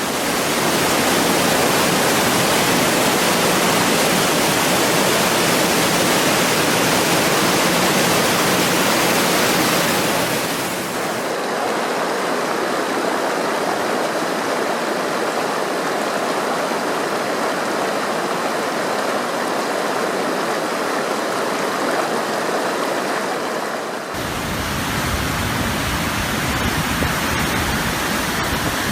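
River water rushing steadily, with the sound changing character twice, about a third of the way in and again near the end, as if separate recordings of flowing water were joined.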